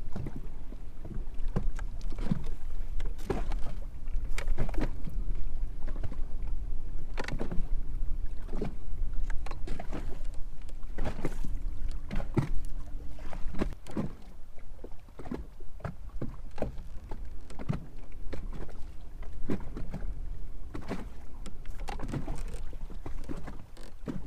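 Small waves slapping irregularly against the hull of a boat, with a steady low wind rumble on the microphone.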